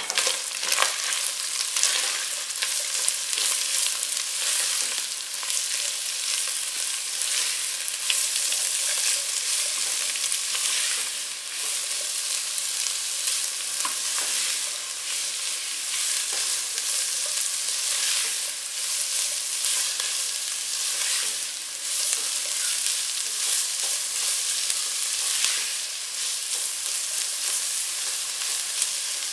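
Chicken pieces, sliced green bell pepper and grated carrot sizzling steadily in hot oil in a non-stick pan while being stir-fried with a spatula. Occasional light taps and scrapes of the spatula against the pan.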